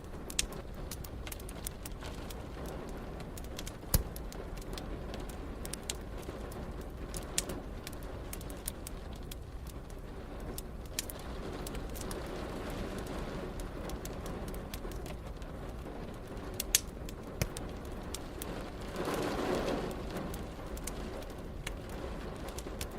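Wood fire crackling, with scattered sharp pops over a steady hiss of rain. A brief louder rush of noise swells and fades near the end.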